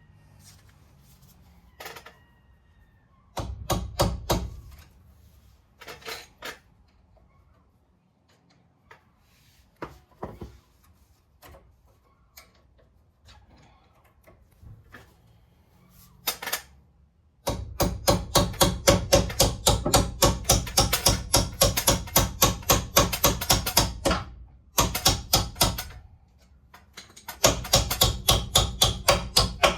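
Hand ratchet clicking in two long, fast, even runs, after a few scattered knocks and clicks of tools on the brake caliper.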